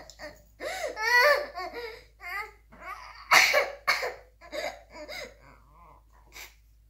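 A young boy sobbing: broken, wavering crying with sharp breaths between the cries, dying down near the end.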